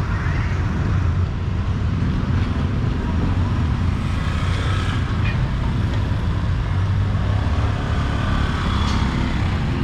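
Street traffic noise at a roadside, a steady low rumble of motorbikes and cars going past, with faint voices under it.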